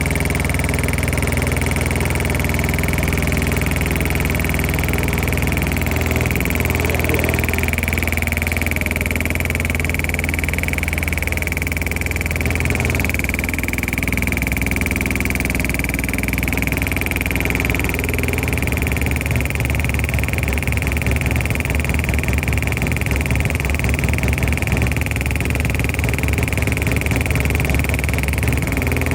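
Hydraulic pump running under test, a steady mechanical drone with a constant high whine over a low hum; the low hum turns rougher about two-thirds of the way through.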